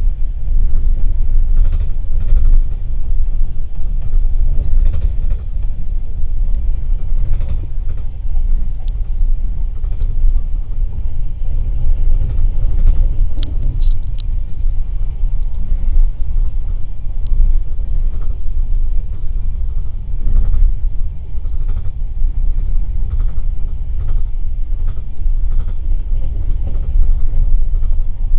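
Passenger train carriage running along the track, heard from inside: a loud, steady deep rumble of wheels on rail, with a few light clicks and knocks now and then.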